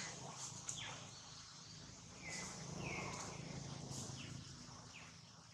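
Several short, high-pitched chirps from animals, some sliding quickly downward and two brief level notes in the middle, over a faint steady outdoor background.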